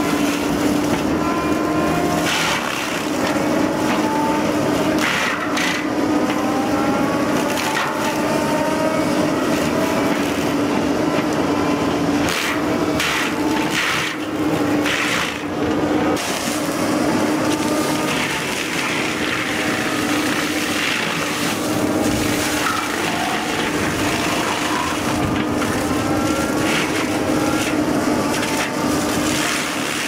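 A machine runs with a steady hum while wood is crushed, with a string of sharp cracks and splintering.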